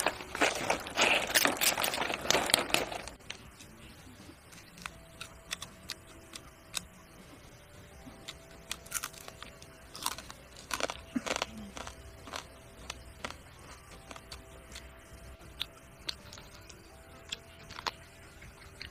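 A knife crunching and crackling through charred, spit-roasted crocodile meat on palm leaves for about three seconds. Then quieter, scattered crunches and smacks as the roasted meat is bitten and chewed.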